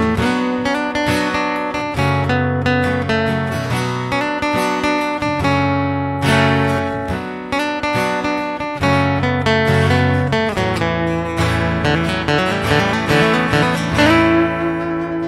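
Steel-string acoustic guitar played solo, unplugged: a quick plucked melody of many notes over lower bass notes, the song's intro and solo lines.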